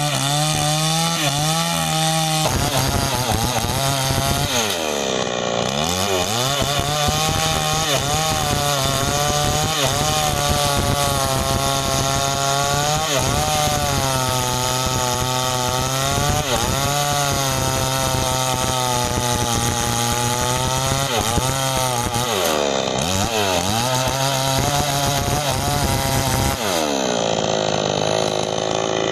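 New West 628 two-stroke chainsaw running at high revs as it cuts into a sengon tree trunk. The engine pitch dips and recovers a few times as the chain loads up in the cut, and drops again near the end.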